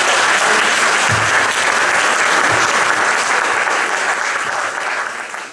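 Church congregation applauding, a steady mass of hand claps that begins to fade away near the end.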